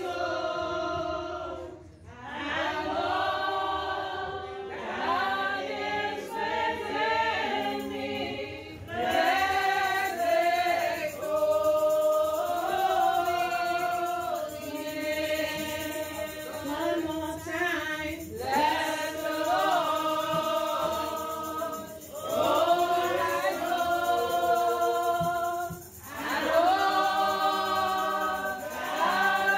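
A church congregation singing together in long sung phrases, with brief breaks between phrases.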